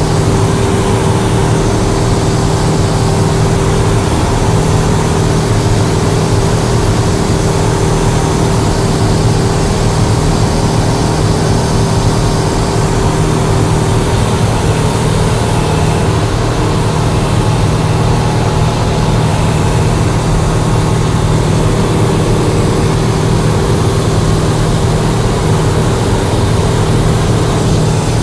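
Cessna 172's piston engine and propeller running steadily in flight, heard loud and unchanging from inside the cabin.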